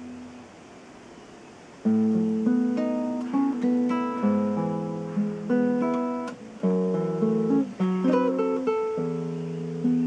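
Solo nylon-string acoustic guitar played fingerstyle. A held chord fades away, then about two seconds in the playing starts again with a picked melody over bass notes.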